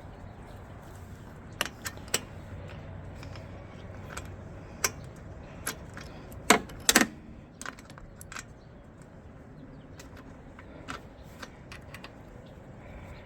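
Scattered light metallic clinks and taps, with a few sharper knocks about six and a half to seven seconds in.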